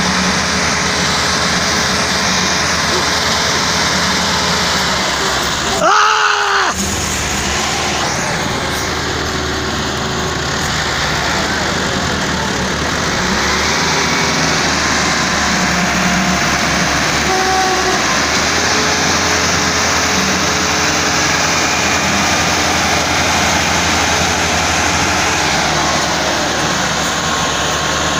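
Two tractors' diesel engines running hard under full load in a tug-of-war, their rear tyres spinning in loose dirt. There is a brief louder burst about six seconds in.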